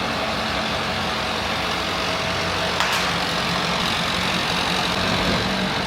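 Heavy engine idling steadily, with one faint tap about three seconds in.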